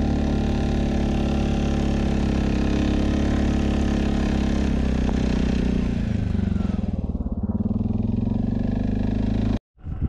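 Off-road vehicle's engine running steadily under way. About six seconds in its pitch drops as it slows down, and the sound cuts off suddenly near the end.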